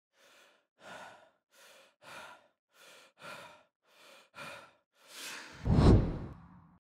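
A man breathing audibly in and out with his head bowed, quieter and louder breaths alternating about every half second. Near the end comes a longer, much louder sigh that blows on the microphone with a low rumble as he straightens up toward the camera.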